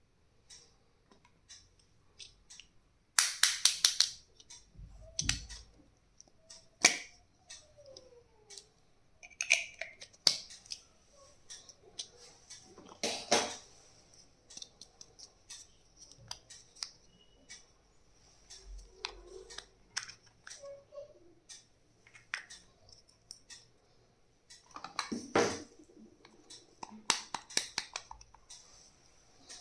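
Stationery items and packaging handled on a table: scattered clicks, taps and small knocks of plastic pieces, with a few quick runs of rattling clicks.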